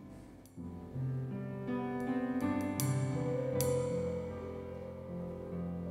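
Slow instrumental keyboard music: held chords with single notes struck over them every second or so.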